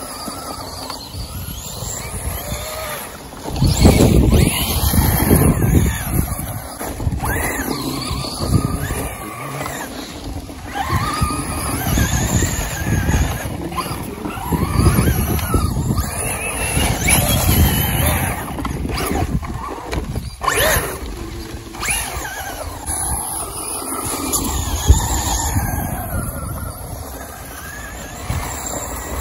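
Traxxas Slash VXL electric RC car's brushless motor whining, the pitch rising and falling again and again as it speeds up and slows, with uneven louder rushes of noise, the loudest about four to six seconds in.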